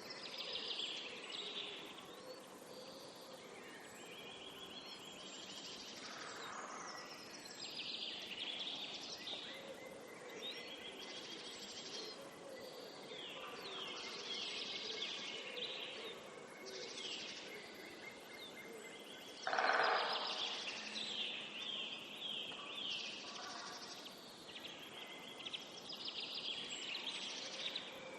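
Several songbirds chirping and singing at once, with overlapping trills, rapid repeated notes and short whistles. A louder, lower call stands out about twenty seconds in.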